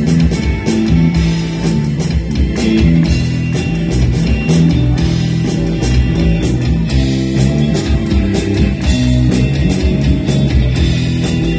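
A live rock band plays on electric bass guitar, keyboard and drum kit to a steady beat.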